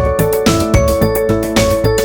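Electronic background music with a steady, quick beat of drum hits and bass notes under a repeating melody.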